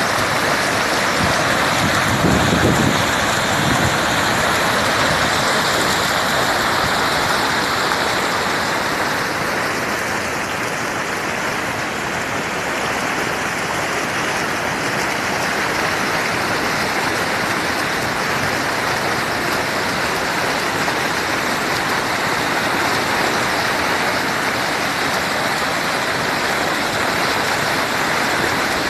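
Steady rushing of water at a reservoir dam, a constant even hiss with a brief low rumble about two seconds in.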